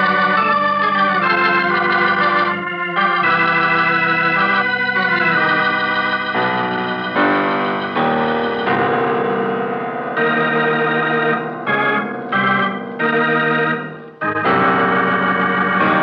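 Organ playing a radio drama's theme music: sustained full chords, breaking into a few short, separated chords about two thirds of the way through before the held chords return.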